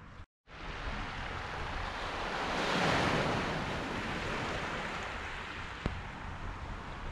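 Small wave washing in over a round-pebble beach, swelling to a peak about three seconds in and easing off as it draws back.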